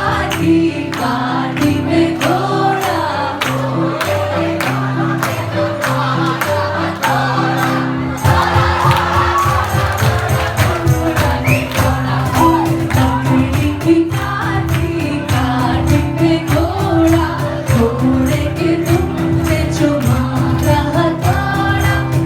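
Retro Bollywood film song with a singer over a bass line and a steady beat; the rhythm gets busier about eight seconds in.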